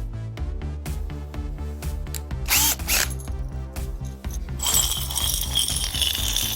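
A small electric drill motor starts about two-thirds of the way in and runs steadily with a high whine, over background music with a steady bass line.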